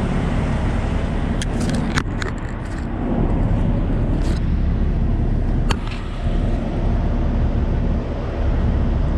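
Steady low rumble of an idling diesel truck engine, with a few sharp clicks and knocks from things being handled.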